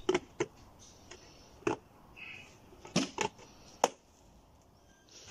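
A plastic paint bucket being opened by hand: about six sharp plastic clicks and snaps as the lid is pried loose around the rim and pulled off, with a short scrape between them.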